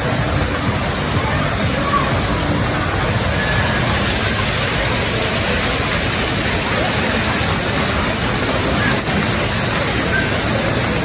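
Steady rushing and splashing of water from water-park sprays and slides, with a crowd's indistinct voices and a few distant shouts under it.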